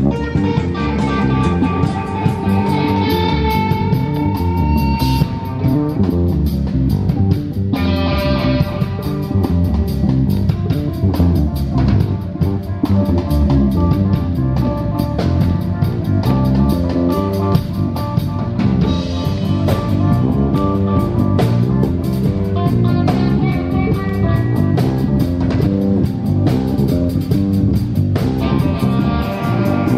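Heavy metal band playing live, with electric guitars, bass guitar and a drum kit, loud and driving.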